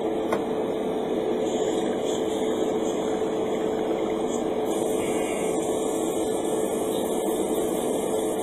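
Airbrushing equipment running: a steady motor hum with one constant mid-pitched tone. A faint high hiss joins about halfway through.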